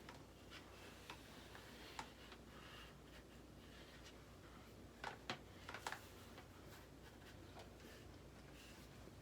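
Near silence: room tone with a few faint, sharp clicks, one about two seconds in and a small cluster around the middle.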